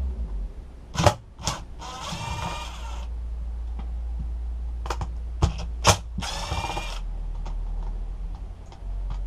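Cordless impact driver backing out the T25 Torx screws of a chainsaw's starter cover: two short runs of about a second each, with sharp clicks of the bit and screws in between.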